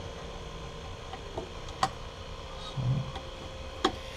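A few sharp clicks and a short low thump from handling the spool gun's wire-feed mechanism as the wire is threaded and the tensioner clamped, over a steady faint hum.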